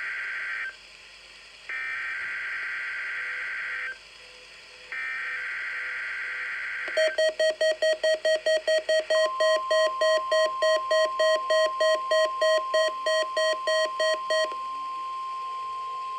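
NOAA Weather Radio SAME header: the end of one burst and two more bursts of warbling digital data tones, ending about seven seconds in. A weather radio receiver's alarm then beeps in rapid pulses for about seven seconds, while the steady 1050 Hz warning alarm tone starts about nine seconds in and holds.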